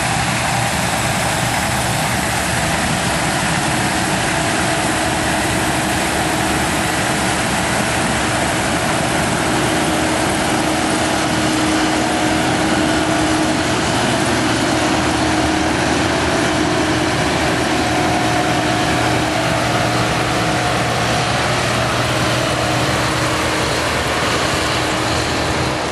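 An engine running steadily at a constant speed, loud and unbroken, with a steady hum over a rushing noise.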